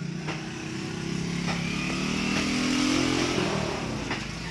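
A motor vehicle engine going past, rising in pitch and loudness to a peak about three seconds in, then falling away.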